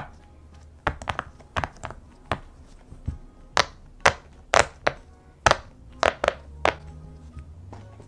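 Round rainbow silicone pop-it fidget toy having its bubbles pushed through one after another by fingertips, giving a series of sharp pops about two a second, some in quick little clusters.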